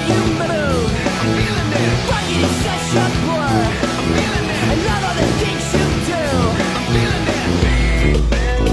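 Loud rock music with distorted guitar and a driving beat, with falling guitar slides every second or so.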